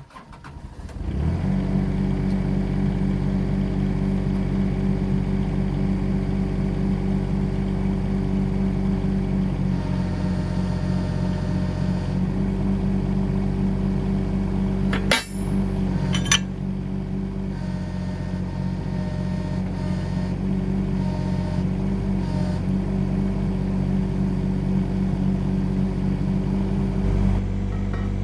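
Mini excavator engine starting up and then running steadily. Two sharp metal knocks sound about fifteen and sixteen seconds in.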